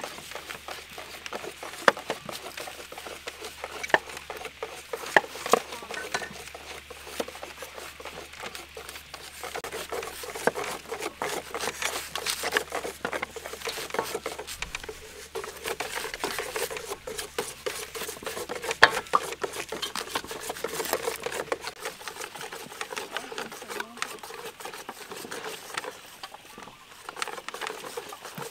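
Several knives cutting and peeling raw onions on wooden cutting boards: irregular sharp taps of blades striking the board mixed with crisp slicing through the onion flesh.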